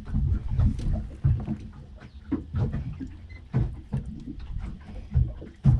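Noise on a small boat on the water: irregular low rumbling with soft knocks and scattered clicks.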